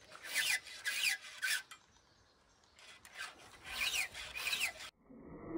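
A round file scraping across the cutters of a chainsaw chain on the bar, being sharpened by hand: a run of quick file strokes, a short pause, then another run. Near the end a different steady mechanical sound starts.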